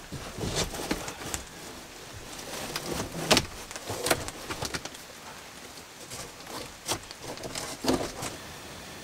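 First scattered drops of light rain tapping on a cardboard tent's roof, heard from inside: irregular single taps over a faint steady hiss, with a few louder ones about a third of the way in and near the end.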